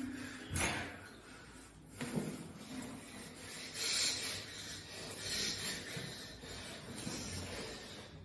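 Faint rubbing and shuffling of hands gripping and twisting a man's fingers. Several short hissing breaths come between them, drawn through clenched teeth in pain, the clearest about four and five and a half seconds in.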